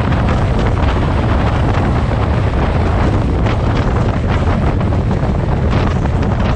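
Wind buffeting the microphone of a motorcycle-mounted camera at riding speed: a loud, steady, low rumble.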